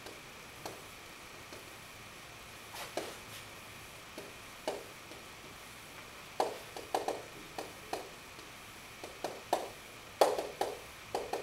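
Marker writing on a whiteboard: short scratchy strokes and taps coming in uneven clusters, with the busiest runs about six to seven seconds in and again near the end.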